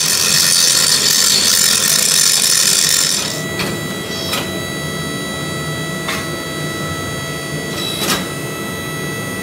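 Angle grinder grinding metal, a loud hiss for about three seconds. It then stops, leaving a steady hum of shop machinery with a few sharp metal clanks.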